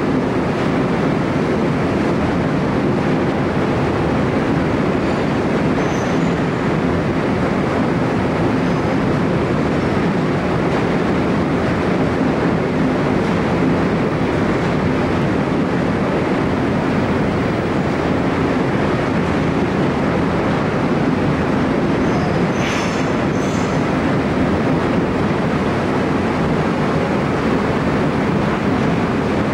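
Steady low rumble of a car ferry's engines and machinery, heard on the enclosed vehicle deck, with one brief high clink about two-thirds through.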